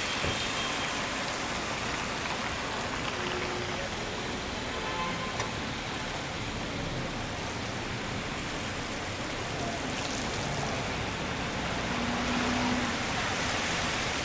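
Steady rain falling on a street, a dense even hiss of drops on hard surfaces, with a slight swell near the end.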